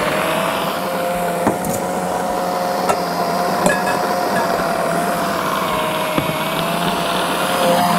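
Electric food processor motor running steadily as it chops and blends minced beef with soy and vegetables, with a few light clicks from the bowl and blade.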